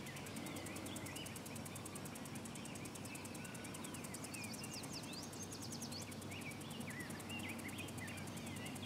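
Faint outdoor ambience: distant small birds singing in short rising and falling chirps throughout, with a brief higher trill about halfway through, over a steady soft hiss.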